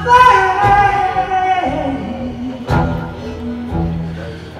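Live acoustic song: a long sung note that sinks in pitch, over accompanying chords struck near the start and again about three seconds in.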